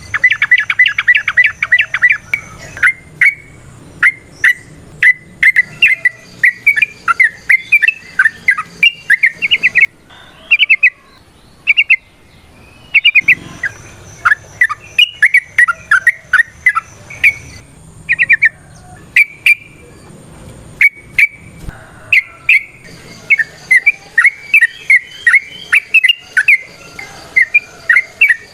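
Yellow-vented bulbul singing in loud bursts of quick, bubbly chattering notes, separated by pauses of a second or two. It opens with a fast rattling run.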